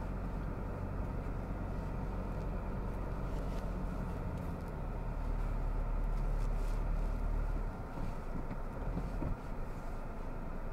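Toyota Hilux diesel engine running at low speed, a steady low drone that eases off about eight seconds in.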